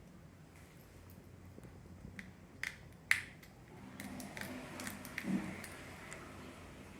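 Small sharp clicks and taps of metal tweezers and tiny parts against a phone's opened body during disassembly: a few distinct clicks about two to three seconds in, with fainter ticks around them.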